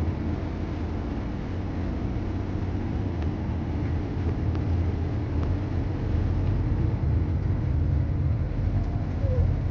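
Steady low rumble aboard a car ferry under way, the ship's engines running.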